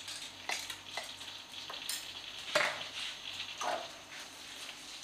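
Cumin seeds frying in hot butter and ghee in a frying pan, a steady sizzle with several sharp clicks and pops spread through it. This is the tempering stage: the cumin crackling shows it has cooked and the pan is ready for the onion.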